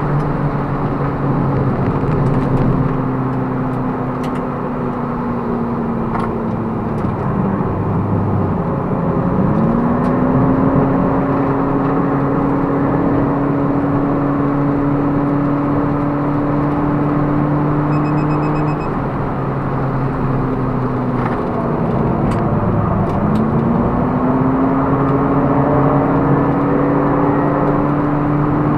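Toyota Prius ZVW30's 1.8-litre 2ZR-FXE four-cylinder engine running hard, heard inside the cabin with road and wind noise. Its pitch falls twice, about eight and twenty-two seconds in, then climbs back and holds.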